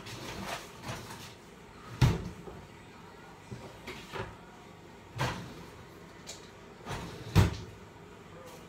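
Kitchen cupboard doors being opened and shut, with a few sharp knocks. The loudest come about two seconds in and near the end, with a smaller one in between.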